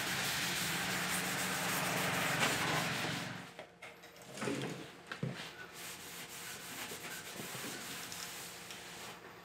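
Scotch-Brite abrasive pad scrubbing back and forth over the painted fender of a pickup truck, smoothing down flaking clear coat; it stops about three and a half seconds in, leaving quieter, scattered rubbing and handling sounds.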